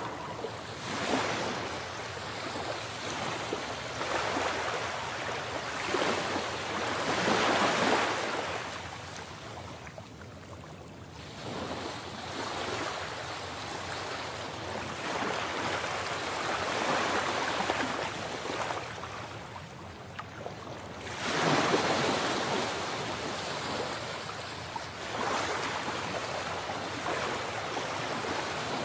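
Ocean waves washing ashore, a wash of surf noise that swells and recedes every several seconds.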